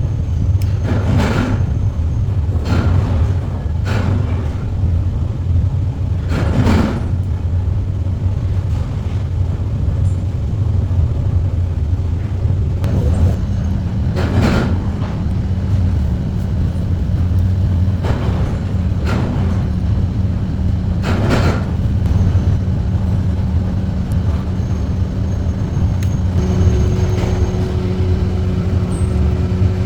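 A steady low rumble runs throughout, with sharp knocks: four in the first seven seconds, then three more spaced several seconds apart. A faint steady hum joins near the end.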